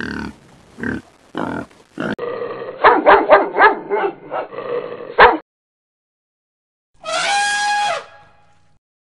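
A few short animal calls, then a dog barking in a quick run of barks for about three seconds. Near the end comes a single elephant trumpet call, one held note lasting about a second.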